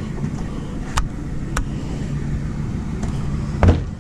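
Pickup truck engine idling steadily while warming up on a cold morning. Two sharp clicks come about a second in, with a louder knock near the end.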